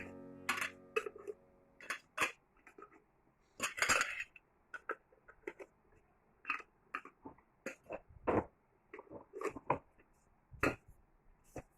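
Irregular clinks and knocks of kitchen utensils against cookware, a couple of dozen separate strikes with short gaps between them.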